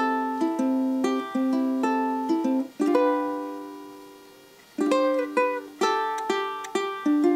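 Solo ukulele fingerpicked, playing a melody of single plucked notes; about three seconds in a note rings out and fades for about two seconds before the picking starts again.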